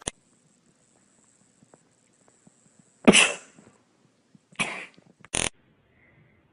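Three short, explosive breath sounds like coughs or sneezes, the first the loudest, over a faint high whine that stops about three seconds in.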